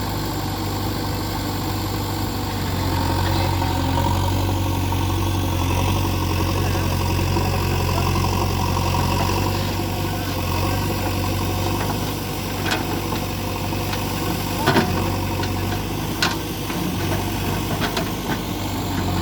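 JCB 3DX backhoe loader's diesel engine running steadily at low speed, with a few sharp knocks in the second half, the loudest about fifteen seconds in.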